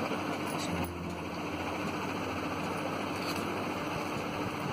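Steady rushing noise with a few faint ticks.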